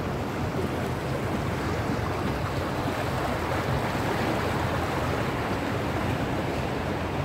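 Steady wash of sea water with wind on the microphone, over the low, even rumble of the inflatable boat's outboard motor.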